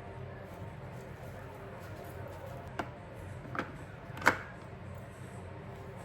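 Three short, sharp clicks of hard objects being handled, a little under a second apart, the third the loudest, over a steady low hum.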